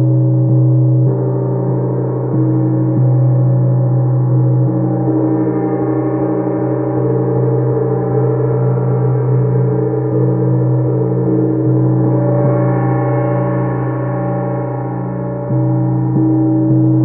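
Chau gong played with a soft mallet, ringing on continuously as a low, many-toned hum with a slow wavering beat. The ring swells and eases a few times as it is kept going.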